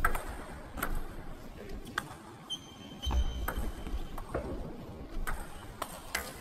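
Table tennis ball clicking off the rackets and the table during a rally: sharp knocks about every half second to a second, with a short high squeak about two and a half seconds in.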